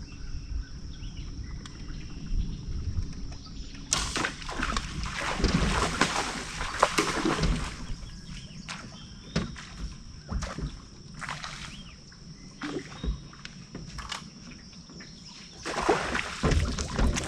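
Water splashing and sloshing in irregular bursts beside a boat, heaviest from about four to eight seconds in and again near the end, over a steady high thin hum.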